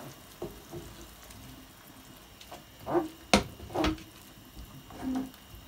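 Wooden spoon stirring a watery vegetable sauce in a non-stick frying pan: liquid sloshing, with a few knocks of the spoon against the pan, the sharpest two in quick succession about three and a half seconds in.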